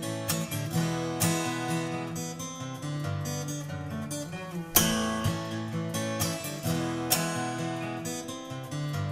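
Background music: strummed acoustic guitar chords at an easy, steady pace.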